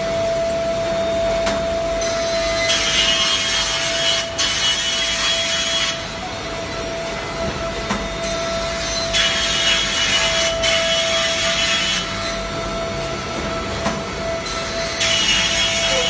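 PCB V-scoring (V-cut) machine cutting grooves into printed circuit board panels: a steady motor whine under a hissing cutting noise. The cutting comes in passes of about three seconds, starting roughly every six seconds.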